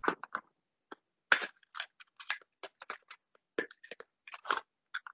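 Irregular short clicks and scratchy rustles, a few every second, with brief silences between them.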